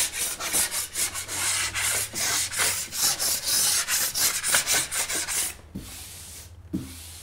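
A broad knife scraping rough spots off dried plaster joint compound on a plasterboard patch, in quick repeated strokes, several a second. The scraping stops about five and a half seconds in, followed by a couple of faint knocks.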